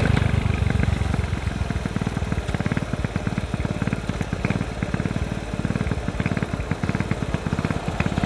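Motorcycle engine running under way, its exhaust giving a fast, even train of separate pulses.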